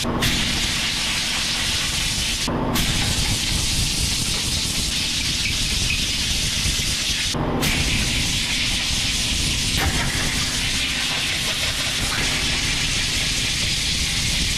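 A steady loud hiss, like air or spray under pressure, that breaks off briefly at about two and a half and seven and a half seconds in, beside a steady low rumble.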